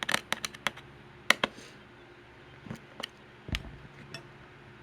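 Clicks and taps of a small screwdriver and fingers working a stuck CPU in a Dell Inspiron 2200's CPU socket. A quick cluster of clicks comes in the first second and a half, then scattered single clicks and one dull knock about three and a half seconds in.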